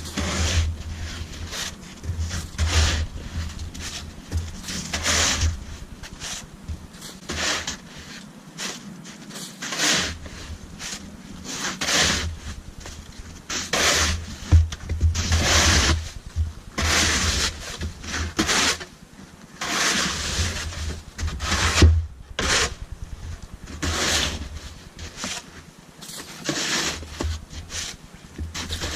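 Snow shovel scraping and pushing snow in repeated strokes, about one a second.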